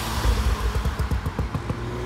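Lowered VW Golf estate passing close by, its exhaust letting out a rapid, irregular string of pops and crackles.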